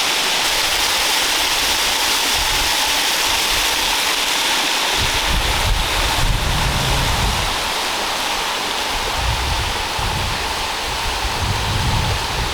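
Waterfall crashing close by, a steady loud rush of falling water. From about five seconds in, low gusty rumbles of wind buffet the microphone.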